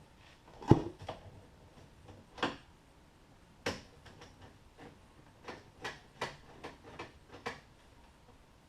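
Sharp metallic clicks and small taps of a Phillips screwdriver and screws as two screws are backed out of the car door, the loudest click about a second in, then a run of light irregular ticks in the second half.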